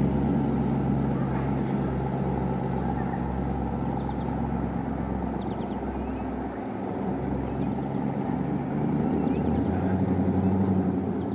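An engine running with a steady drone. It eases slightly past the middle and swells again near the end.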